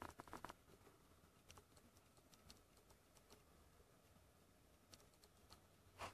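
Near silence: faint room tone with a few scattered, irregular light clicks, a slightly louder one near the end.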